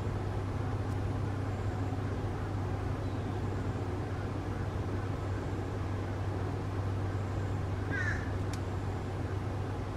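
Steady low hum with a faint hiss of background noise, and one short bird call about eight seconds in.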